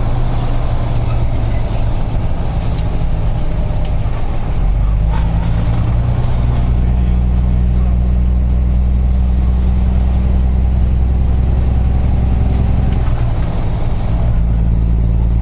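Kenworth truck's diesel engine running under way, heard from inside the cab as a steady low drone over road noise; the engine note shifts about four and a half seconds in and again near the end.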